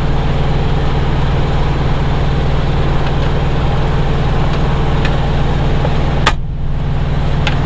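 Semi truck's diesel engine idling steadily, with a few light clicks over it and a sharper click about six seconds in.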